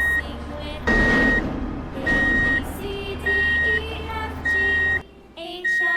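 Toy truck's electronic reversing beeper: a steady high beep about half a second long, repeating roughly every 1.2 seconds.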